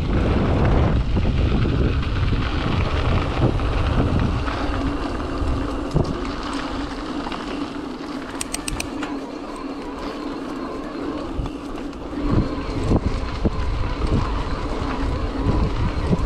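Wind buffeting the microphone while riding a mountain e-bike on a trail, with scattered knocks and a steady low hum. The wind noise dies down for several seconds in the middle and builds again near the end.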